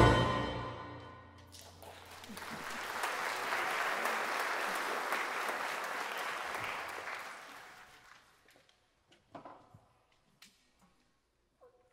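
Symphony orchestra's closing chord dying away, then audience applause that swells and fades out after a few seconds. A few faint clicks follow near the end.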